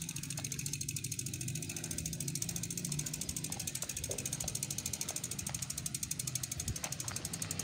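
Bicycle rear freewheel ticking rapidly and evenly as the rider coasts, over a low steady rumble.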